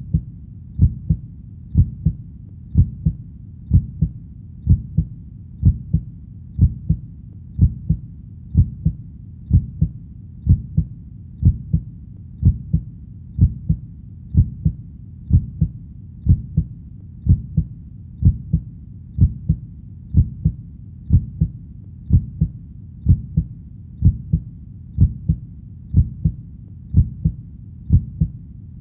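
A heartbeat sound of low double thumps, lub-dub, repeating steadily about once a second over a faint low hiss.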